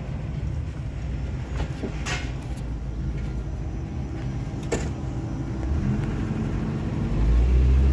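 Steady low rumble of a vehicle on the move, with a few light clicks, swelling much louder about seven seconds in.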